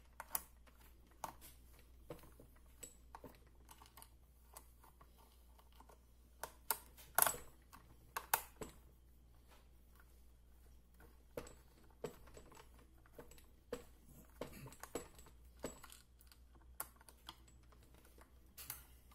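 Screwdriver turning screws into the plastic housing of a Bosch GSB 20-2 drill: scattered light clicks and scrapes of the tool and the plastic shell being handled, with a few sharper clicks about seven and eight seconds in.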